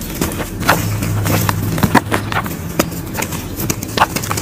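Hands crushing and crumbling lumps of dry mud, a dense, irregular run of crunches and crackles with a few sharper snaps as pieces break apart.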